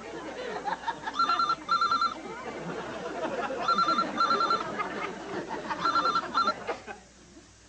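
Telephone ringing with a British-style double ring: pairs of short trilling rings, three times, the last pair ending a little before the end.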